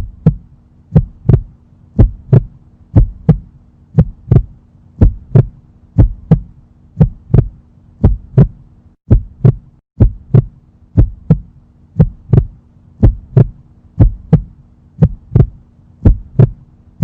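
Heartbeat sound effect: paired thumps about once a second over a low steady hum, which drops out briefly around the middle.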